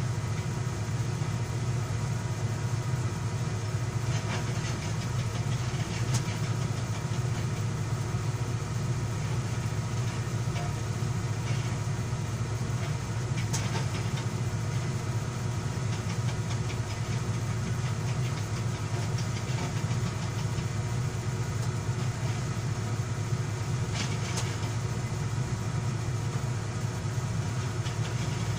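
Komatsu 220 excavator's diesel engine running steadily, with a few faint knocks scattered through.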